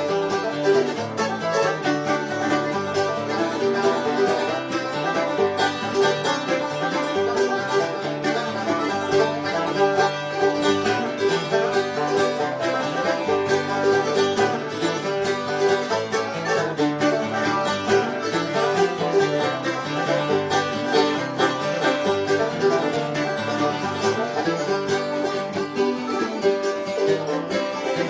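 Bluegrass picking with no singing: a banjo playing fast rolls over guitar accompaniment in an instrumental passage.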